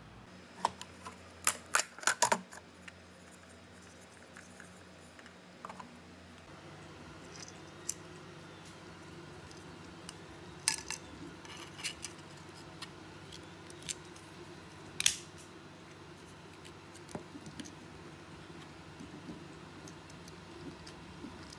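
3D-printed plastic parts of a Dragon capsule model clicking and knocking together as they are handled and fitted by hand: a quick run of sharp clicks about two seconds in, then scattered single clicks, the loudest about fifteen seconds in, over a faint steady hum.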